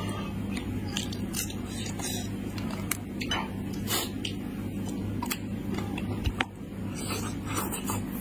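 Wet eating sounds of spiced sheep's head meat: meat pulled from the skull by hand and chewed, with short clicking mouth smacks scattered through, over a steady low hum.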